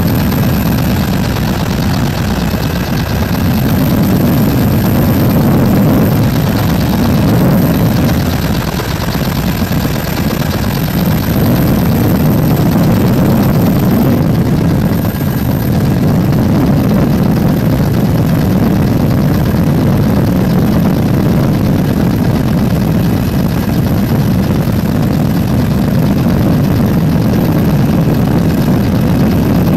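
Helicopter in steady flight, heard from aboard: a loud, unbroken rotor and engine drone with a thin high whine above it.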